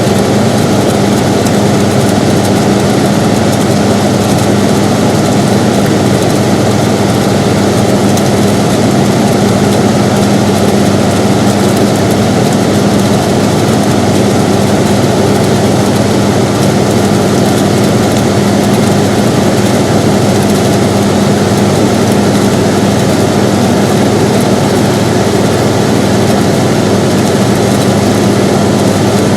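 Air conditioner running steadily: an even whooshing noise with a constant low hum underneath, unchanging throughout.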